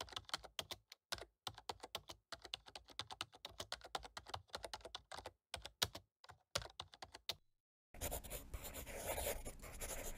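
Laptop keyboard typing: quick, irregular key clicks for about seven seconds. After a short gap, a pencil scratches steadily on paper from about eight seconds in.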